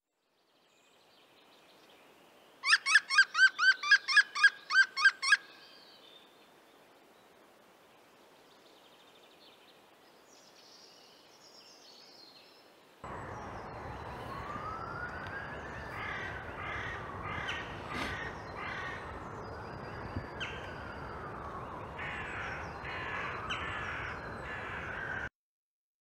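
European green woodpecker giving its yaffle, a rapid laughing series of about a dozen loud, evenly spaced notes lasting under three seconds. About halfway through, a steady rushing woodland background with scattered bird calls starts suddenly and runs until it cuts off near the end.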